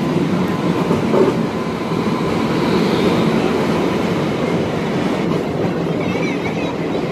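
Passenger train rolling past a station platform: a steady rumble of coaches running over the rails.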